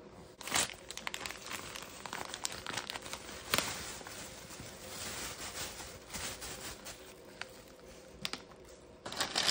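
Packaging of a box of seasoned fish fry mix being opened, crinkling and tearing in a dense run of crackly rustles and small clicks.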